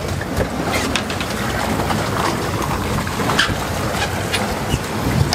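A fishing boat's engine running with a steady low hum under the rush of wind and sea, with a few sharp clicks or knocks scattered through it.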